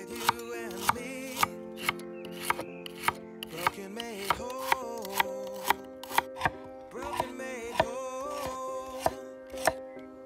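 A knife with a dimpled (Granton-edge) blade slicing a celery stalk on a wooden cutting board, each cut landing with a sharp tap on the board at about two cuts a second. Background music plays underneath.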